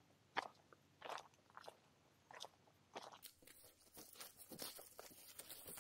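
Faint footsteps crunching along a grassy dirt track, about one step every two-thirds of a second, with a faint outdoor hiss from about three seconds in.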